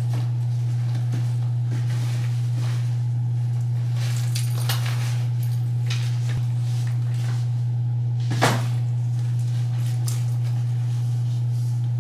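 A steady low hum throughout, with light rustling and clicking as things are handled and packed into a bag, and one sharp knock about eight seconds in.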